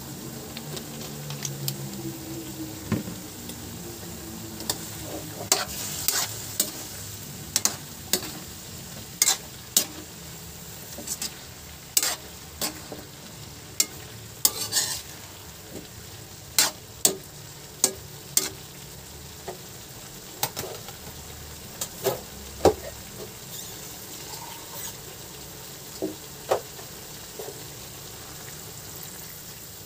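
Pork and vegetables sizzling in a metal wok while a metal spatula stirs them, scraping and clanking sharply against the pan many times. The clanks start a few seconds in and stop near the end, leaving the steady sizzle.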